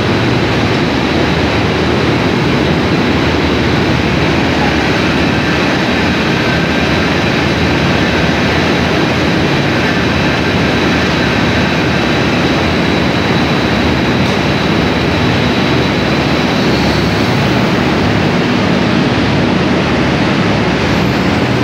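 Cotton ginning plant machinery running: a loud, steady dense mechanical noise with a thin high whine that fades out near the end.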